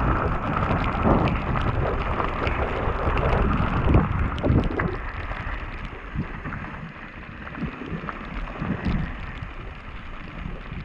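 Mountain bike descending a wet gravel trail: wind rushing over the helmet camera's microphone, tyres rolling over gravel and the bike knocking and rattling over bumps. The noise eases off about halfway through as the bike slows onto flat ground.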